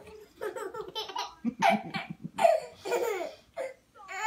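A baby laughing in several bursts.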